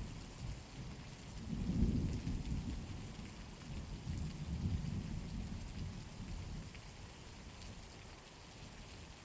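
Steady rain with low rolls of distant thunder, swelling about two seconds in and again around the middle, then fading out near the end.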